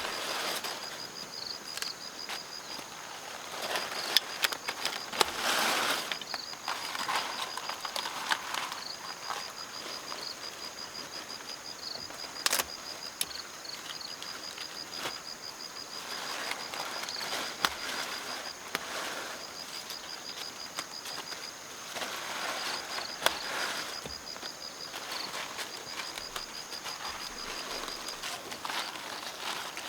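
An insect chirping in rapid, evenly pulsed runs of a few seconds at a time, over intermittent rustling and a few sharp clicks.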